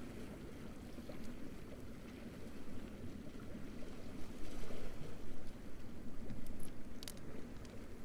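Small waves washing on a beach shore, a steady low wash that swells a little from about halfway through, with a few faint brief ticks about seven seconds in.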